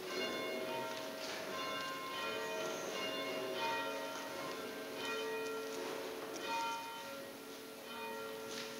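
Church bells ringing: a run of struck notes, each ringing on and overlapping the next.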